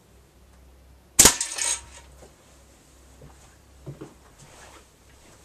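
A single sharp metallic clank with a short ring about a second in: a 6mm ball from a slingshot striking the dangling tin can target. A few faint knocks follow.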